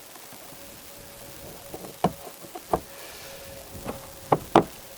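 Hard plastic clicks and knocks from a car taillight being pushed and seated into place. About four sharp ones come in the second half, with softer ticks between them.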